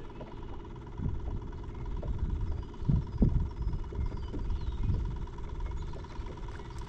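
Wind buffeting the microphone: an uneven low rumble with soft irregular thumps, strongest about three seconds in.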